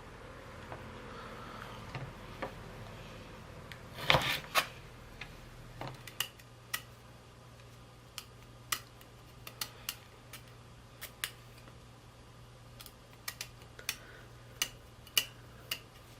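Kitchen knife cutting and peeling the hard outer shells off soaked chestnuts: irregular sharp clicks and cracks, with a louder cluster about four seconds in.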